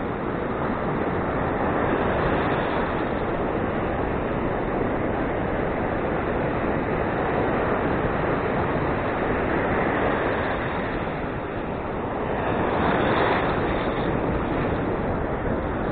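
Ocean surf washing onto the beach in a steady rush, mixed with wind on the microphone; a wave swells louder about thirteen seconds in.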